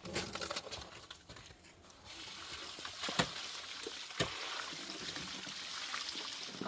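Water being poured in a steady stream, starting about two seconds in, with a couple of sharp knocks partway through.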